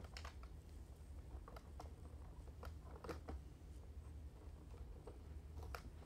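Faint scattered clicks and light taps of plastic vacuum parts being handled, over a low steady hum; neither vacuum is running.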